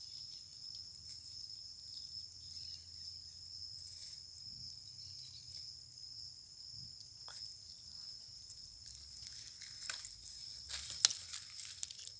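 Faint steady high-pitched trilling of insects in the background, with a few sharp clicks and rustles about ten to eleven seconds in.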